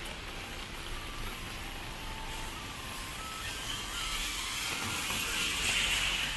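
Traffic on a rain-soaked street: a steady wash of tyres on wet road, with a car's tyres hissing louder as it passes, about four seconds in. Faint short beeping notes at changing pitches sound in the first half.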